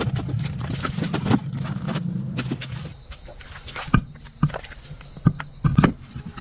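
A motor runs with a steady low hum, then stops about three seconds in; scattered sharp knocks and clicks follow, like metal parts being handled.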